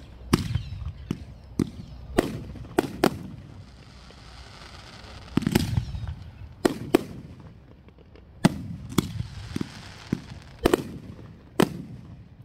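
Aerial firework shells bursting: about a dozen sharp booms at irregular intervals, with a softer hiss between them.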